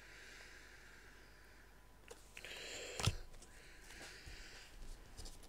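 Faint rustle of trading cards being handled, then a single sharp tap about three seconds in as a card is set down on the table.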